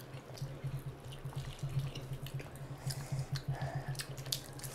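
Close-miked eating of mutton curry and rice by hand: wet chewing and lip-smacking in a steady rhythm, with many small sticky clicks.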